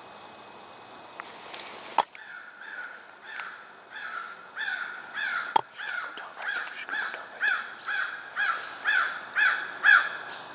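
A bird calling over and over, about two calls a second, growing louder toward the end. Two sharp clicks stand out, one about two seconds in and one near the middle.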